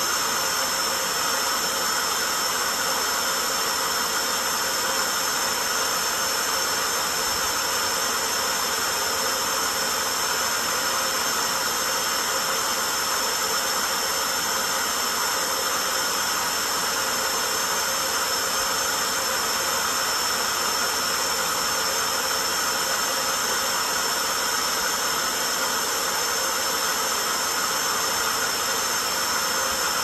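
Electrolux Well Q6 cordless stick vacuum running with a steady high whine and hiss. It keeps running without cutting out now that its turbo nozzle's brush roll has been cleaned and unstuck.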